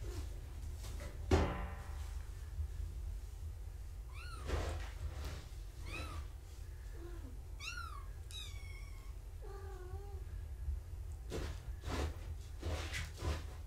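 Month-old kittens mewing: several short, high mews that rise and fall, between about four and nine seconds in, then a lower, drawn-out cat call around ten seconds. A sharp knock about a second in and a few softer thumps near the end, over a steady low hum.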